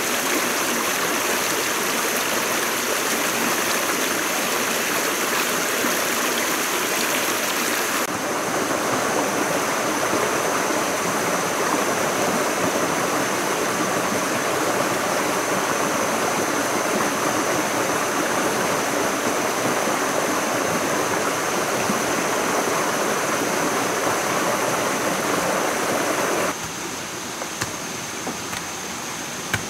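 Steady rush of a forest stream running over rocks. Near the end the water sound drops away and a few sharp knocks of a hoe biting into soil come through.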